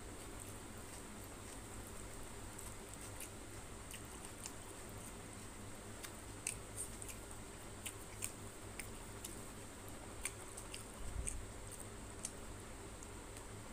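Soft squishing of rice and fish curry being mixed by hand on a plate, with scattered small wet clicks of chewing and lip smacks, over a faint steady hum.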